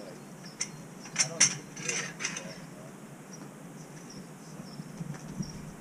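Several sharp metal clanks and knocks as cast iron radiator sections are handled on a hand truck, loudest about a second and a half in.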